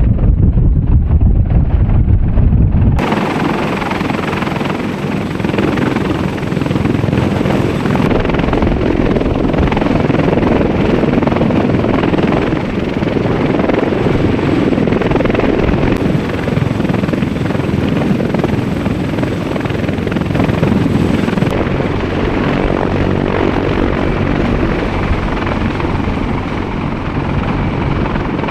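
Sikorsky CH-53E Super Stallion heavy-lift helicopter running loud and steady: rotor and turbine noise. A deep rumble like wind on the microphone dominates the first three seconds, then the sound changes abruptly to a fuller rotor noise with a faint high whine.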